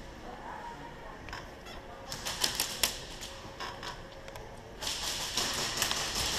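Airsoft guns firing: scattered sharp shots, a few single ones about two seconds in, then a denser rapid run of clicks over a hiss near the end.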